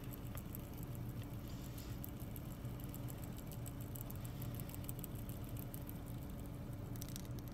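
Fidget spinner with small gear wheels on its arms spinning close by, giving a stream of faint rapid light ticks, over a steady low hum inside a car.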